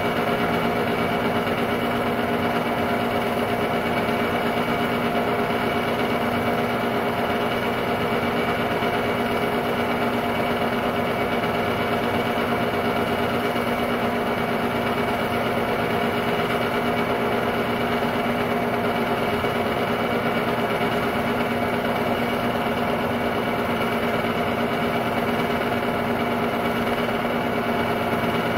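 Technicolor 810 8mm film-loop projector running, a steady mechanical hum and whirr of its motor and film transport holding at an even level with several constant tones.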